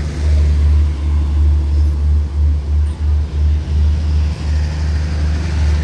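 Diesel engine of a standing passenger train idling: a loud, steady low rumble with a slight flutter in level.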